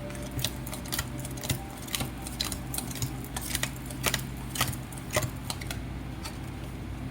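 Irregular light clicks and taps from small objects being handled, about two or three a second, over a steady low hum.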